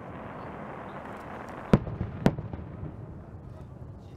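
Two sharp bangs of aerial firework shells bursting, about half a second apart, a little under two seconds in, over a steady background rush.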